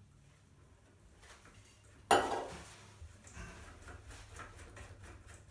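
A sharp clunk about two seconds in as a metal aerosol can of WD-40 is set down on a ceramic basin, ringing on briefly. Faint rustling and small knocks follow as tissue is handled and the basin plug is worked.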